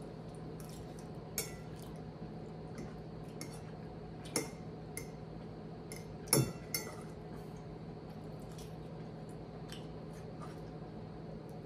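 Fork clinking and scraping against a plate while eating: a few separate clicks, the loudest a little past the middle, over a steady low hum.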